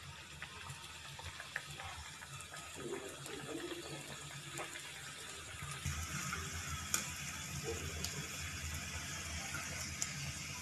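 Samosas deep-frying in hot oil over a high flame: a steady sizzle with scattered sharp pops, growing brighter and stronger about six seconds in.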